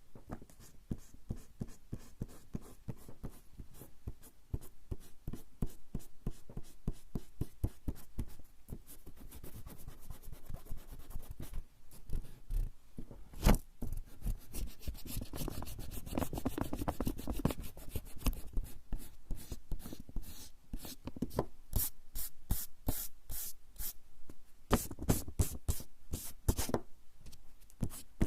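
Rubber eraser rubbing back and forth on coarse straw paper (warabanshi), many quick strokes. There is one sharp tap about halfway through, and the strokes grow louder near the end.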